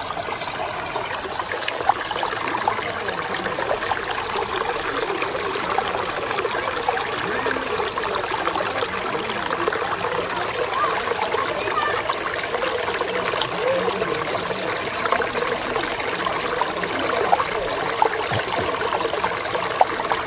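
Shallow mountain stream trickling steadily over stones, with many small bubbling notes throughout.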